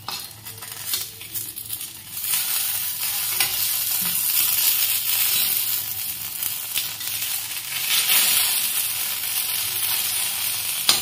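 Eggplant pieces sizzling as they shallow-fry in a little oil in a metal kadai, with a metal blade scraping and turning them. The sizzle gets louder about two seconds in.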